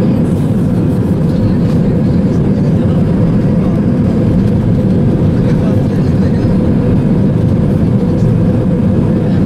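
Airbus A320 airliner heard from inside the passenger cabin as it rolls along the runway: steady, loud engine and rolling noise, mostly low-pitched, with a faint constant hum in it.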